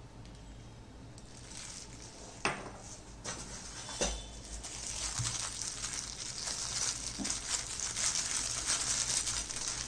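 Clear plastic wrapping crinkling and rustling as a miniature brass piece is unwrapped by hand, growing louder toward the end, with two sharp knocks about two and a half and four seconds in.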